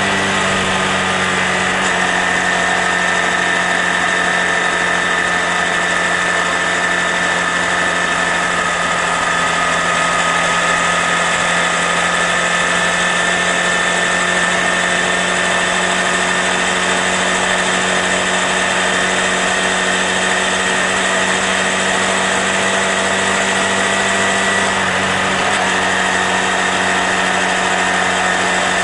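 Honda Grom's single-cylinder engine running at steady riding speed, with wind rushing past the rider. The engine note shifts slightly near the start and again near the end.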